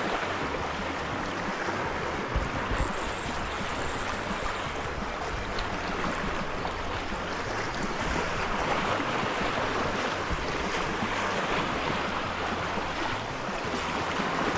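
Wind rumbling on the microphone over a steady wash of sea water, with a brief higher hiss about three seconds in that lasts about two seconds.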